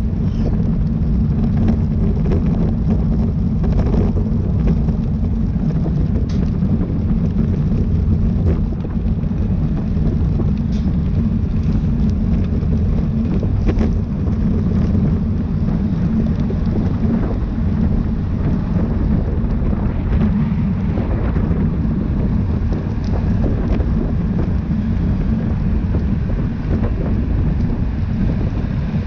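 Wind buffeting a camera microphone while riding at race speed: a steady, loud low rumble with a fainter hiss above it.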